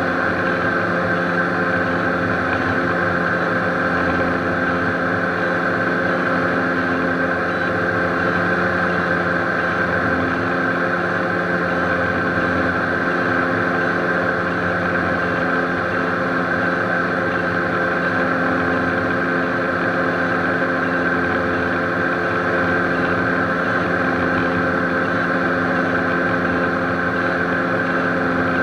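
Beechcraft Baron B55's left piston engine and propeller running steadily, heard inside the cockpit: the right engine is shut down with its propeller feathered, so the twin is flying on one engine.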